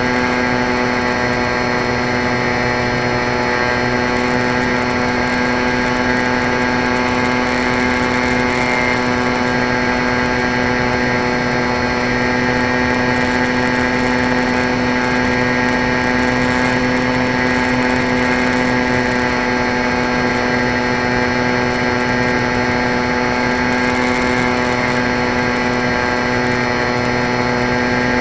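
Electric motor and propeller of an EP Falcon 3 radio-controlled plane in flight, picked up by its onboard camera: a steady whine held at one pitch, over a hiss of rushing air.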